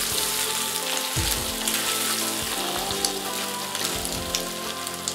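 Soaked soya chunks sizzling as they are sautéed in ghee and oil in a kadai, stirred with a spatula that knocks against the pan now and then. Soft background music plays underneath.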